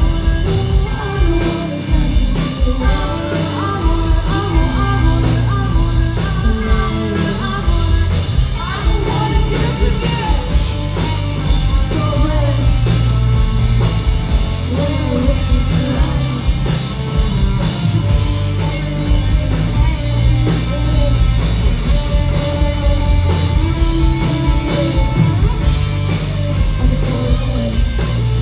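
Live rock band playing: distorted electric guitars, bass guitar and drum kit with sung vocals, heard loud and bass-heavy from the audience floor.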